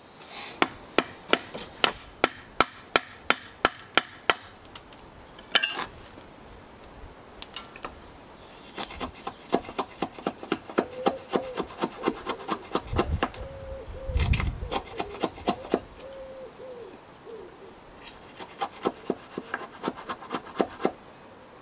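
Hand tool cutting notches into a pallet-wood cross member: sharp, rhythmic scraping strokes on the wood, about two a second at first, then denser in the middle.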